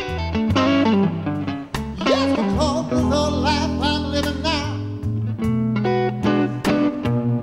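A blues band playing live: guitar, bass and drums, with a singer's voice over the top and short stabbed chords.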